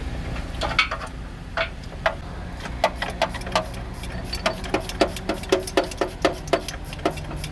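Ratchet wrench clicking as AC compressor mounting bolts are tightened: a few scattered clicks, then steady ratcheting at about four clicks a second from about halfway.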